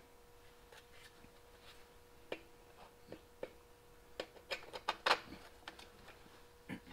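Faint, scattered clicks and taps of small parts and tools being handled, a cluster of them a little after the middle, over a faint steady hum.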